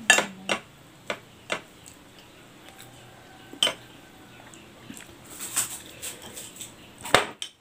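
Metal spoon clinking and scraping against a plate in separate sharp clicks while eating, with a cluster of smaller ticks about two-thirds of the way through and the loudest clink near the end.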